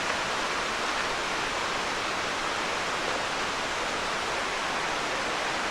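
Small waterfall rushing steadily, an even hiss of falling water.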